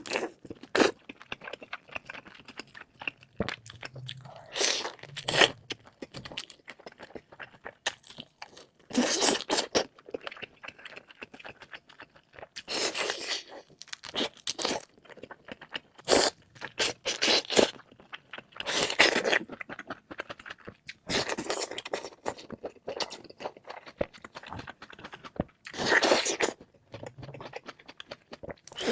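Close-miked eating: a person biting into and chewing crisp food, with irregular loud crunches every second or two and quieter crackling chewing between them.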